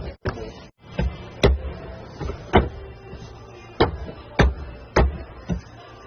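Music with a series of sharp, unevenly spaced percussive hits over faint sustained tones.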